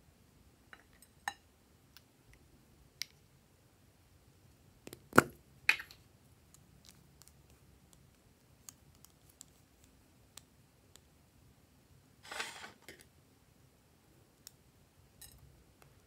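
Handling sounds of lipsticks and craft scissors: scattered light clicks, two sharp clicks about five seconds in, and a short scraping rustle a little after twelve seconds.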